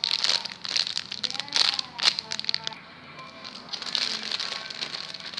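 Crinkling and crackling of plastic being handled, likely the packaging of a squishy foam toy, in quick irregular bursts that ease off about three seconds in and pick up again near the end.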